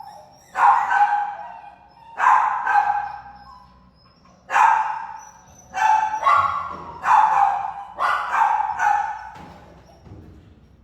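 A dog barking repeatedly in a shelter kennel: about six loud barks a second or so apart, each echoing off the hard walls.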